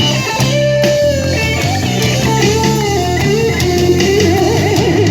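Rock band playing without vocals: an electric guitar lead line of sliding notes, with fast wavering bends in the second half, over bass guitar and rhythm guitar.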